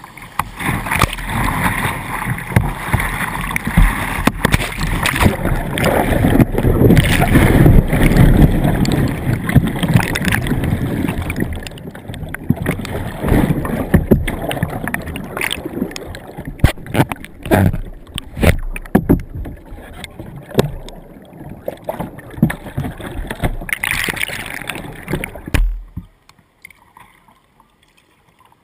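Whitewater rushing and splashing over a kayak's bow, heard through a bow-mounted GoPro. Midway the bow goes under and the sound turns to churning, gurgling water with irregular splashes. Near the end the rushing cuts off suddenly.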